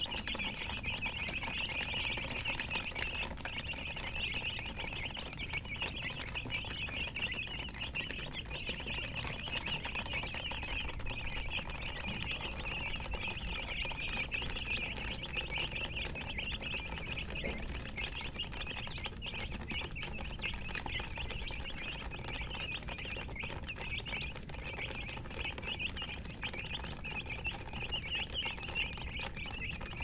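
A flock of domestic chicks peeping continuously: many high-pitched chirps overlapping in a steady, unbroken chorus.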